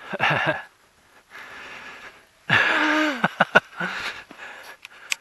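A person's breathy vocal sounds: short gasps and breaths, then about halfway through a louder drawn-out exclamation whose pitch falls, with a few sharp clicks just after it and near the end.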